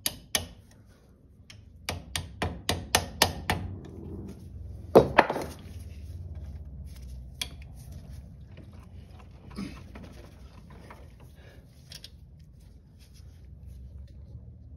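Hand tools working a cotter pin out of an ATV tie-rod castle nut: a quick run of sharp taps about two seconds in, one louder knock around five seconds, then scattered small clicks.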